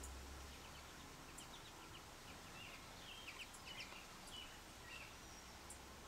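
Faint, short, high sparrow chirps and chip notes, a loose run of them between about one and five seconds in, over a steady outdoor hiss.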